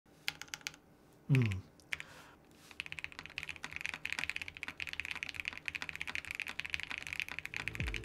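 Fast typing on a custom mechanical keyboard: a dense, rapid run of keystroke clicks. It follows a few separate key clicks and a brief, loud falling tone about a second in.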